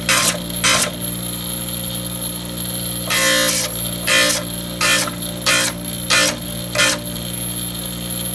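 Background music: a steady low drone under sharp percussive hits about every two-thirds of a second, with a gap of about two seconds near the start.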